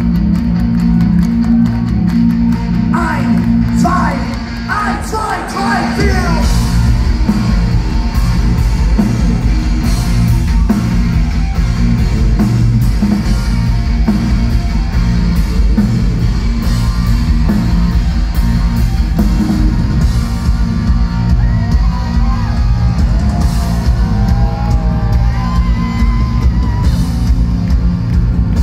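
Rock band playing live through a hall PA: distorted guitar, bass and drums with vocals and crowd yells. The deepest bass drops out and the sound dips briefly about four seconds in, then the full band comes back in.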